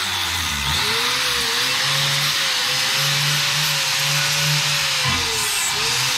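Handheld electric angle grinder running continuously against a steel beam, grinding burrs off freshly drilled bolt holes. Its motor whine sags in pitch as it is pressed onto the metal and climbs back, most sharply about a second in and again near five seconds.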